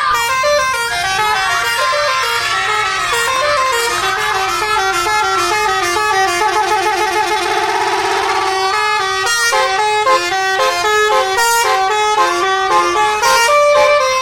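A bus's multi-tone 'telolet' musical air horn playing a quick tune of stepped notes, several horn tones sounding together. It holds one long chord about halfway through, then goes back to faster note changes.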